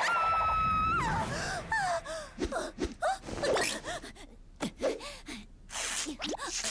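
A cartoon zombie girl's wordless vocal sounds: one long high held cry that drops in pitch at the end, followed by a string of short squeaky rising-and-falling noises mixed with sharp clicks.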